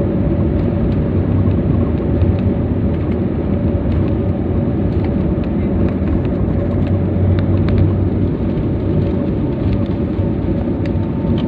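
Jet airliner engines and wheels rumbling on the runway, heard from inside the cabin as the plane rolls for takeoff: a dense, steady low rumble with a constant engine hum. A second, higher hum comes in near the end, with light rattles now and then.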